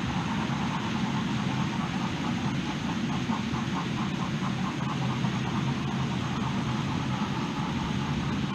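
OO gauge model train running on the layout: steady motor hum and wheel rumble on the track, with a light, regular ticking.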